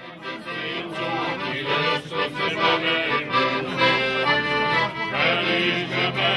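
Piano accordion playing a lively traditional folk tune, with acoustic guitar accompaniment.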